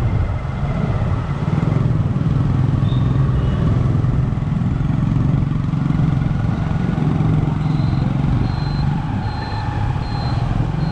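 Motorcycle engine running steadily while riding, with road and wind noise. Near the end a series of short, high-pitched beeps repeats about every three quarters of a second.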